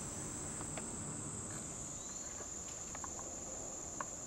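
Steady high-pitched drone of summer insects in the woods, with a few faint light ticks scattered through it, one slightly sharper near the end.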